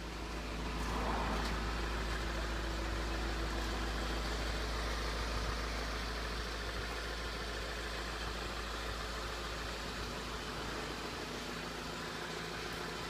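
Honda Civic hatchback's engine idling steadily, heard from outside the car; it grows a little louder about a second in.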